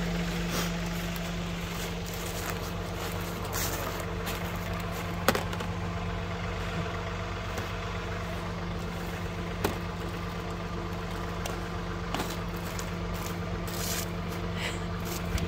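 A tractor engine idling steadily in the background. Over it come a few sharp plastic clicks and knocks, the strongest about five seconds in, as the blue plastic sap bucket's lid and the bucket are handled on the maple tree.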